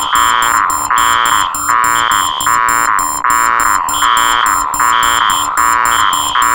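Four electronic alarms sounding together, loud, beeping and buzzing in overlapping rhythms. A high beep about half a second long comes roughly once a second over faster, higher beeps and a pulsing lower tone.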